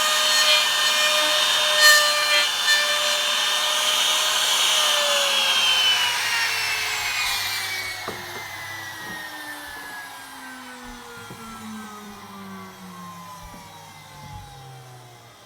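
Wood trimmer (small router) with a 6 mm straight bit running at speed and cutting into wood. About five seconds in it is switched off, and its whine falls steadily in pitch as the motor coasts down.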